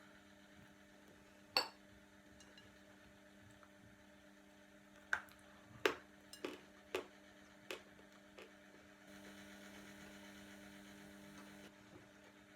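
A few sharp, separate crunches of dry edible clay ('Turkestan cream' clay) being bitten and chewed, one early and a quick run of five about halfway through, over a steady low mains hum. A soft hiss runs for about three seconds near the end.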